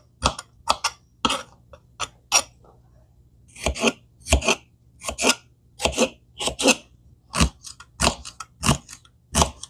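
Kitchen knife chopping a celery stalk on a plastic cutting board: short, sharp cuts about twice a second, unevenly spaced, each blade stroke going through the celery and striking the board.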